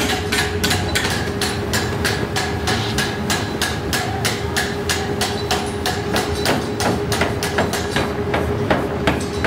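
Power hammer pounding a glowing steel axle blank, with evenly spaced blows at about four a second and a steady hum underneath.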